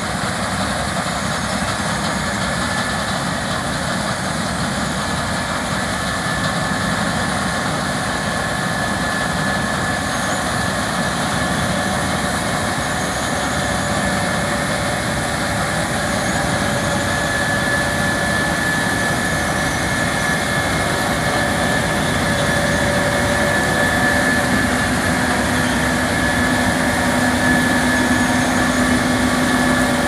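Case IH 5140 Axial-Flow combine harvester running while cutting rapeseed: a steady drone of engine and threshing machinery with a high whine over it. It grows slowly louder toward the end as the combine draws alongside.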